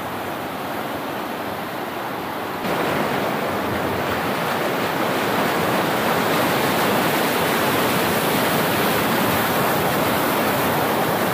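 River water rushing, a steady, even noise of fast-flowing water that grows abruptly louder about two and a half seconds in.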